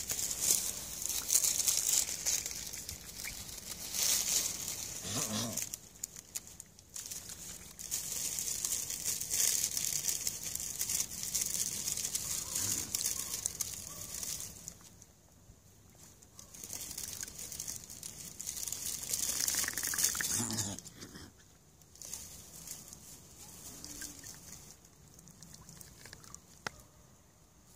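Mute swans dabbling with their bills at the water's surface beside the ice edge, a soft crackling, spluttering patter that comes in spells and dies down over the last several seconds.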